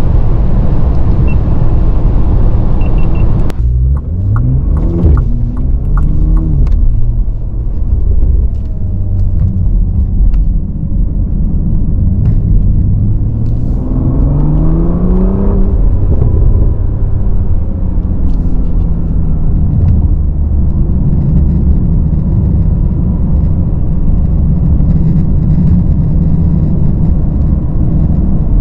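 Cabin sound of a Bentley Continental GT Speed's W12 engine. For the first few seconds there is heavy wind and tyre rush at high speed. Then, at low speed, the engine rises in pitch as the car pulls through the low gears, with a few sharp clicks, and settles into a steady drone.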